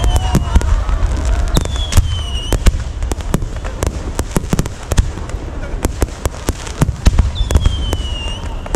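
Fireworks display: a rapid, irregular barrage of sharp bangs and crackles over a constant deep rumble, with a few short whistles falling in pitch.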